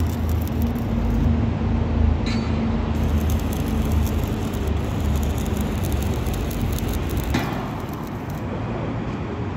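Stick (arc) welding on a steel drain-grate frame: the arc crackles and sizzles over a steady low hum, starting suddenly, breaking off briefly a couple of times and stopping about a second before the end.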